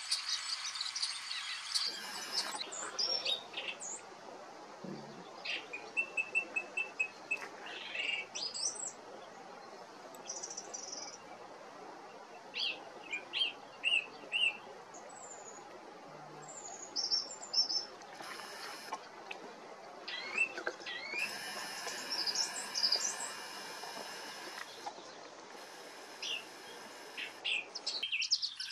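Wild songbirds chirping and calling: many short, high chirps and brief trills, scattered irregularly over a steady outdoor hiss. In the first two seconds a creek runs behind them, cut off suddenly.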